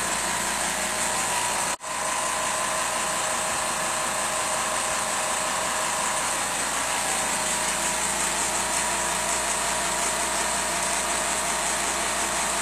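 Steady machine hum and hiss from the running laser-engraver setup, its fans and air equipment. The sound cuts out briefly about two seconds in.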